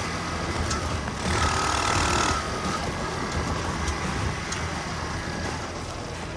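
Small minibike engine running steadily, with a louder stretch of rushing noise for about a second near the start.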